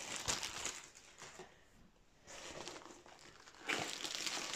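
Rustling and crinkling of the plastic wrap around a rolled diamond-painting canvas as it is handled and lifted, quieter in the middle and louder again near the end.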